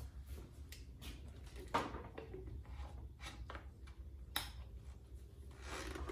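Faint handling noise and light plastic clicks as an aftermarket flip cap is fitted onto a chainsaw's tank, with two sharper ticks, one a couple of seconds in and one just past the middle.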